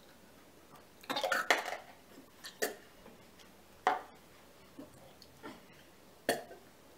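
Coughing and gagging from people chewing a foul-tasting jelly bean, loudest in a short burst about a second in. A few sharp clinks and knocks of cups and an ice-filled glass on the table come after it.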